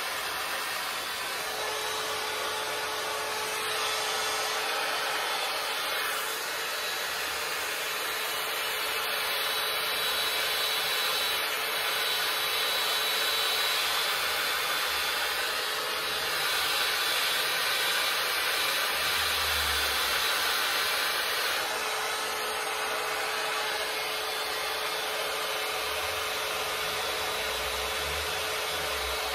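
BaByliss hot air styling brush running continuously as it is worked through hair: a steady rush of blown air with a faint, even motor hum, a little louder through the middle.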